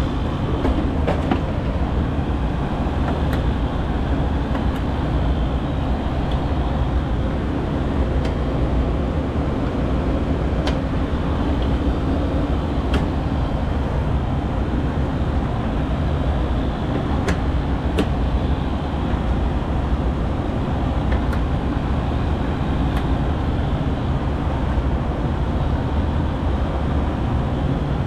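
Steady low rumble, with about ten faint sharp clicks scattered through it as plastic wiring-harness plugs are pressed back onto a Trane Symbio 700 controller board.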